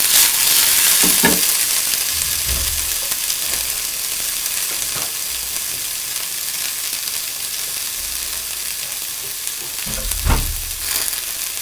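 Carrot, baby corn and green bean sticks sizzling as they are sautéed in a frying pan, tossed at the start and then left to sizzle steadily. The sizzle is loudest at the start and eases a little, with a dull knock near the end.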